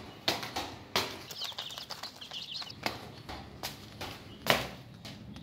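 Scattered footsteps and knocks of the handheld phone moving over a concrete floor, with a few faint high bird chirps near the middle.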